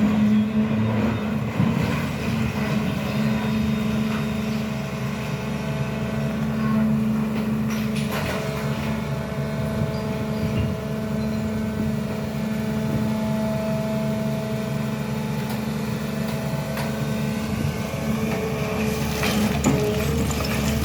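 SANY excavator's diesel engine running steadily, with a steady higher whine over it and a few faint knocks.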